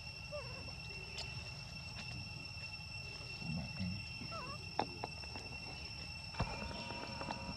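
Insects droning steadily at a high pitch, with a few short chirping calls and two or three sharp clicks.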